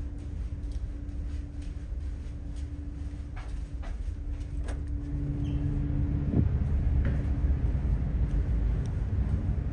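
Steady hum and low rumble aboard the Shin Nihonkai Ferry car ferry Lilac, with a few clicks as a door to the outer deck is worked open. About six seconds in the indoor hum stops and a louder, fuller low rumble of the ship in the open air takes over.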